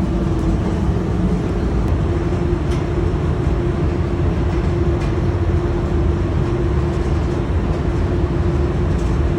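A machine running steadily: a deep, loud rumble with a constant hum over it.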